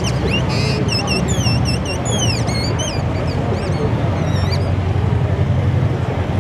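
Steady street traffic rumble, with a quick run of high, chirping whistles that slide up and down in pitch over the first four seconds or so, then stop.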